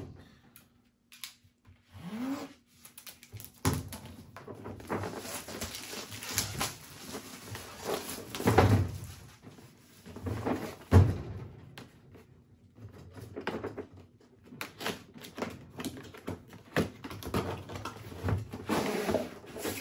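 Cardboard packaging being handled and a hard plastic socket-set case slid out of its cardboard box: rustling and scraping with scattered clicks and a few thuds.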